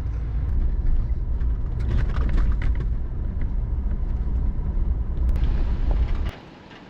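Car driving, heard from inside the cabin: a steady low rumble of engine and road noise that cuts off abruptly about six seconds in, leaving only faint outdoor sound.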